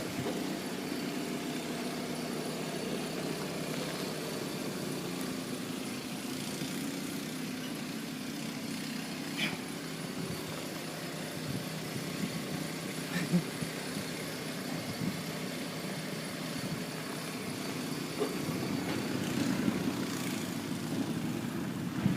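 Car engine running steadily at low revs, with a few faint knocks.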